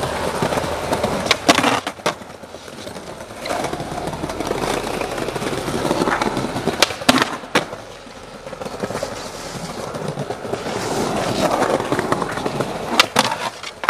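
Skateboard wheels rolling over stone paving slabs with a steady grinding rumble. Sharp clacks come in close pairs three times: about a second and a half in, around seven seconds, and near the end.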